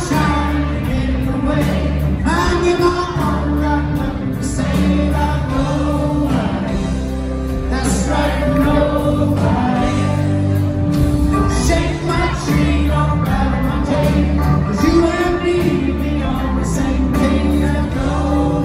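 Live Southern rock band playing: male lead vocal over electric guitar, drums and keyboards, heard from within the concert audience.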